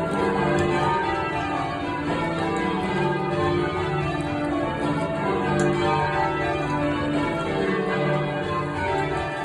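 A ring of twelve church bells, tenor 23-3-19 in D, in change ringing: the bells strike one after another in quick succession with no break, their tones overlapping.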